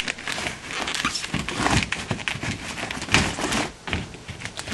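Cardboard-framed air filter being slid and pushed into the air handler's filter slot: scraping and crinkling with a string of light knocks, the loudest knock about three seconds in.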